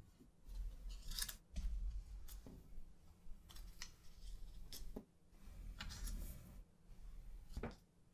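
Faint handling sounds of paper and marker on a wall: a series of short, sharp scratchy strokes and crinkles as a marker writes and sticky notes are peeled and pressed on, with a low rumble underneath.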